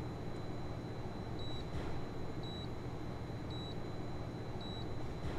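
Short high electronic beeps, four of them about a second apart, over a steady low hum.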